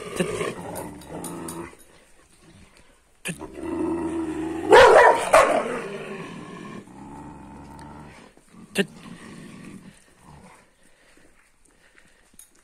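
Two large female shepherd dogs growling at each other in a squabble. A louder, harsher growl peaks about five seconds in, and a single sharp click follows a few seconds later.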